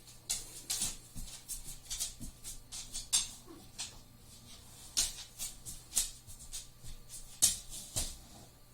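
Paintbrush working watercolour paint on paper: an irregular run of short, scratchy brush strokes, several a second, with a few harder taps.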